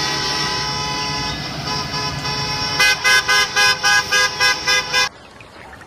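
School bus horn: one long blast for nearly three seconds, then a quick string of about nine short honks.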